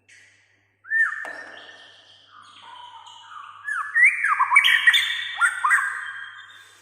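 White-rumped shama singing: a varied run of clear whistled notes and quick downward-swooping phrases, growing loudest about four to six seconds in.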